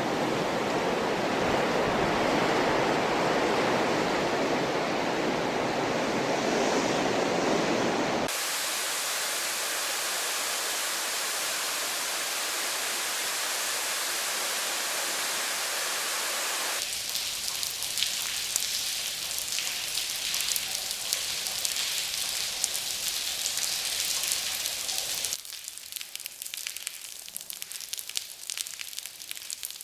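A run of weather sound effects, each cut straight into the next: steady wind blowing for about eight seconds, then hard rain falling as an even hiss, then hard rain spattering on concrete with a dense crackle, and from about 25 seconds in, light rain pattering on concrete, quieter and with sparse drips.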